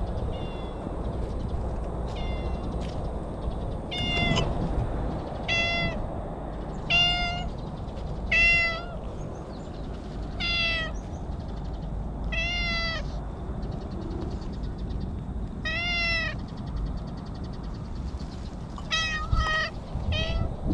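A stray domestic cat meowing over and over while being petted: about a dozen short meows, each rising then falling in pitch, one every second or two, with a quick run of four near the end.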